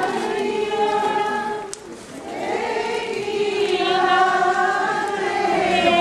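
A group of voices singing a slow devotional hymn together, with long held notes and a short breath pause about two seconds in.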